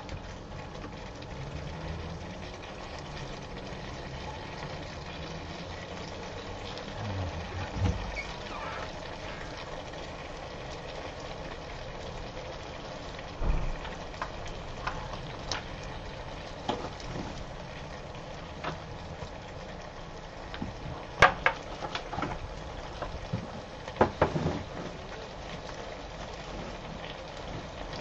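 Potatoes simmering and bubbling in white wine in a frying pan, with a wooden spatula stirring and scraping at first. A few sharp clicks or knocks stand out, the loudest about two-thirds of the way through.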